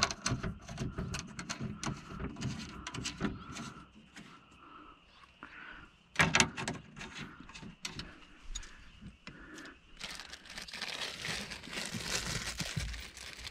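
Hands and hand tools working inside a car door while the window motor is screwed in: irregular clicks and knocks with rustling, a few sharper knocks about six seconds in, and a scratchy scraping stretch near the end.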